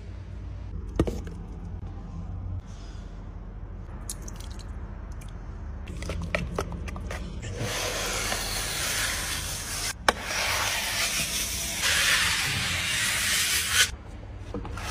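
Steel plastering trowel scraping across a wall being finished in stucco marble plaster. After a quieter first half with a few light taps, a long, loud scraping begins about halfway through, with one sharp click in the middle of it. The scraping stops shortly before the end.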